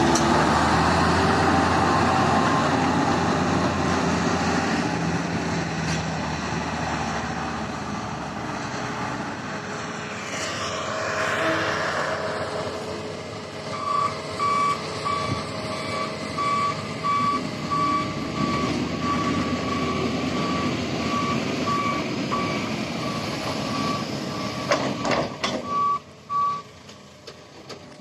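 Heavy mining dump truck's diesel engine running, then from about halfway a high-pitched reversing alarm beeping steadily until it stops near the end.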